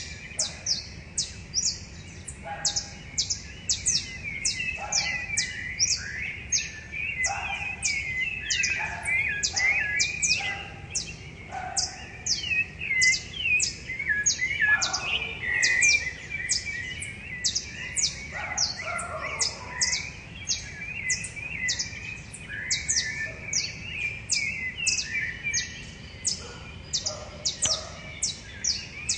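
Several rufous-bellied thrushes singing, their warbled phrases overlapping one another. Above them a short high chirp repeats steadily two to three times a second.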